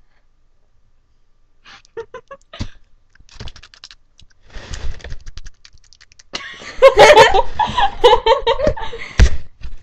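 Near silence, then a scattering of short clicks and faint voice sounds, then loud laughter from about six seconds in.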